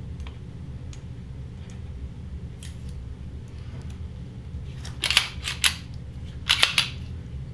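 Sharp clicks and clacks of a Canik TP9SFx pistol being handled, in two quick clusters of about three clicks each, the second about a second and a half after the first, with a few faint ticks before them.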